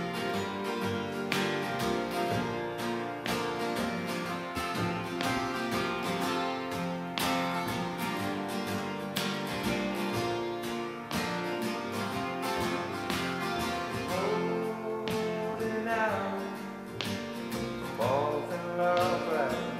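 Live acoustic folk band playing: acoustic guitars strummed and picked over an upright bass, with a man's voice coming in singing near the end.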